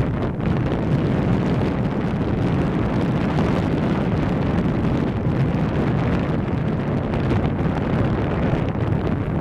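Wind buffeting the camera microphone: a steady, rumbling rush with no clear engine note in it.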